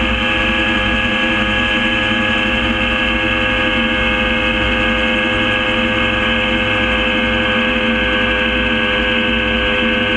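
Gyrocopter engine and propeller running at a steady speed: an even, unchanging drone made of several steady tones over a low rumble.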